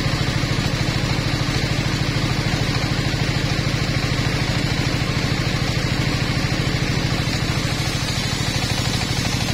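Engine-driven table circular saw running steadily, its motor pulsing fast and even under the hiss of the blade as it rip-cuts a long wooden board fed lengthwise.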